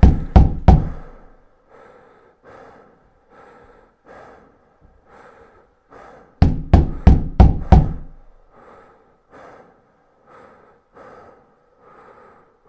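Knocking on a door, as a sound effect: a burst of five or so loud, rapid knocks at the start and another of about six knocks about six seconds in. Softer, evenly spaced thuds come roughly twice a second between and after the bursts.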